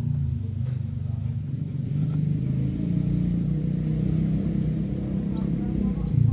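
An engine running steadily nearby with a low rumble.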